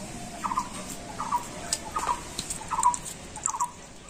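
A bird calls the same short note over and over, about every two-thirds of a second, with small high clicks and crackles of a boiled eggshell being peeled.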